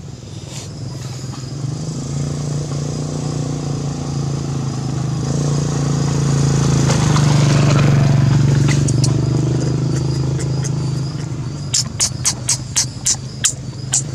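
A motor vehicle's engine running as it passes, a steady hum that swells to its loudest about eight seconds in and then fades. Near the end comes a quick run of sharp clicks, about three a second.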